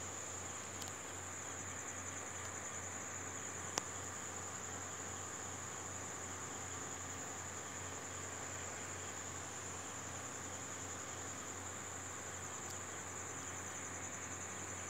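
Crickets chirping in a continuous high-pitched trill with a fast, even pulse, over a steady low hum. A single sharp click about four seconds in.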